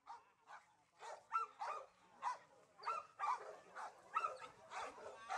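A dog barking repeatedly, about two barks a second, fading in and growing louder over the first second or so.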